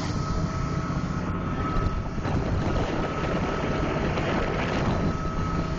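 A ferry's engine running steadily under way, a low drone with a thin, steady whine above it, over the rushing hiss of water churned along the hull.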